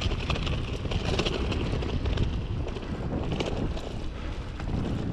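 Mountain bike rolling fast over a bumpy dirt trail: tyres on loose dirt, with frequent small rattles and clicks from the bike over the bumps, under a steady low rumble of wind on the microphone.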